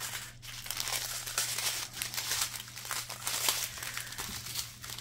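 Strip of small plastic bags of diamond-painting drills crinkling as it is unfolded and handled, with irregular crackles throughout.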